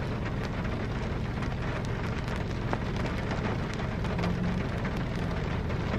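Rain falling on a car's roof and windows, heard from inside the cabin: an even hiss dotted with many small drop ticks, over a low steady hum.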